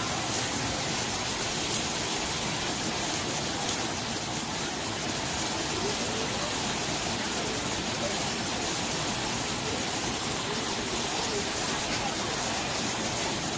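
Steady rush of several waterfalls pouring over rockwork into a pool.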